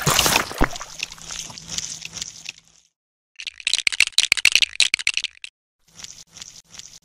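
Dubbed stop-motion sound effects: wet, crackling mud-and-water sounds. After a short silence comes about two seconds of rapid small clicks and rattles, then faint wet noise near the end.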